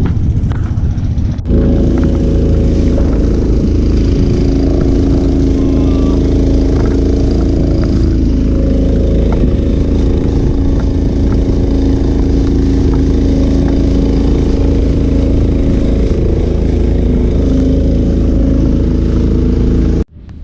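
An engine running steadily at speed, with heavy low wind rumble on the microphone. It comes in sharply about a second and a half in and cuts off just before the end.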